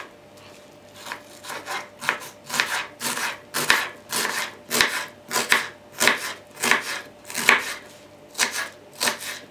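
Kitchen knife cutting through an onion and striking a wooden cutting board in a run of crisp strokes, about two a second and unevenly spaced, as the onion is diced.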